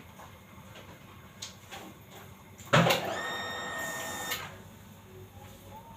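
A sharp knock, then a high, steady squeak held for about a second and a half that stops abruptly.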